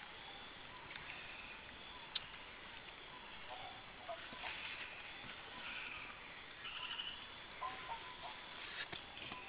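Steady high-pitched chorus of crickets and other night insects, with a few sharp clicks, the loudest near the end.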